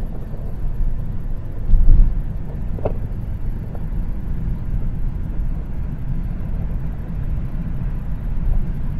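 Road noise inside a moving car's cabin: a steady low rumble of tyres and engine at cruising speed, with one louder low thump just before two seconds in.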